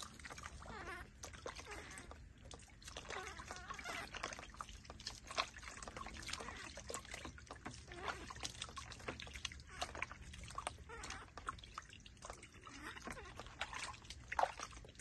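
Water splashing, trickling and dripping in a plastic basin as a baby monkey is bathed by hand: water is scooped and dribbled over it, and it is lowered back into the water near the end. The splashes come in many short, irregular bursts.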